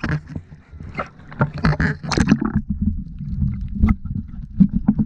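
Water splashing and sloshing around a camera at the sea surface. About halfway through the camera goes under and the sound turns to a muffled low underwater rumble, with a few sharp clicks.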